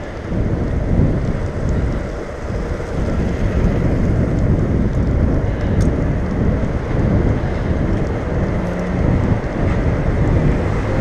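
Wind buffeting the microphone of a handlebar-mounted camera on a moving bicycle, mixed with tyre and road noise: a loud, steady low rumble that swells and falls. A faint low hum joins near the end.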